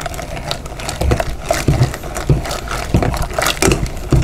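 Old Sears hand-cranked rotary egg beater whisking thick cake batter in a glass bowl: irregular clicks and clacks of the metal beaters and gears, several a second, over the wet churning of the batter.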